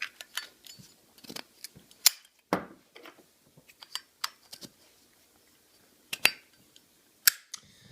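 Zippo lighter being handled: a series of light metal clicks and taps, with sharper clacks about two seconds in and twice near the end.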